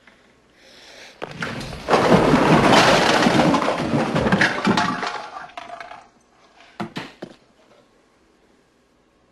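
A loud, drawn-out crash of things breaking and clattering, lasting about four seconds, followed by two sharp knocks about two seconds later.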